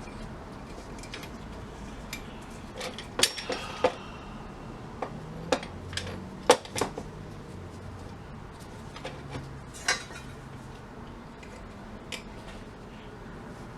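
Irregular metallic clinks and taps as hand tools work at the metal parts of a vintage gumball machine, trying to free a stuck pin. The sharpest clink comes about six and a half seconds in.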